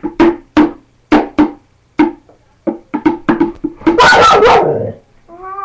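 A bucket beaten as a makeshift drum: a run of sharp strikes, irregular at first and then quicker. About four seconds in a dog barks loudly.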